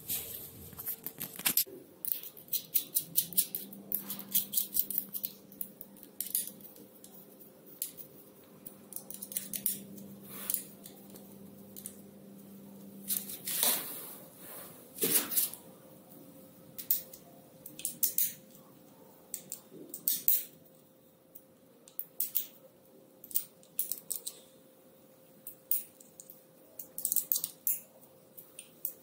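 Scattered light clicks, taps and rattles of hands working on an electric bike's handlebar: tightening the clamp screws and handling the brake levers and controls.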